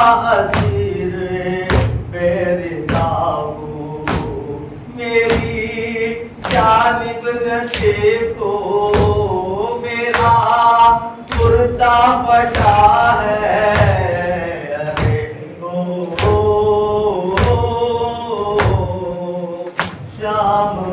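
A man's voice chanting an Urdu noha (Shia mourning lament) unaccompanied, with steady chest-beating (matam) thumps of hands on chests, about three beats every two seconds, keeping time under the chant.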